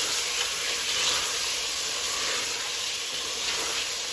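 Mutton pieces with onions, tomato and spices sizzling steadily in hot oil in a pressure cooker while being stirred with a wooden spatula, the frying (bhuna) stage before water goes in.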